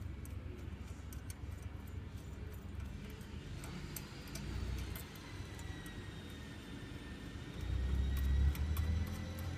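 Light clicks and clinks of small metal parts, spacers and washers, being handled and slid onto the end of a drift trike's rear axle, over a low rumble that swells near the end.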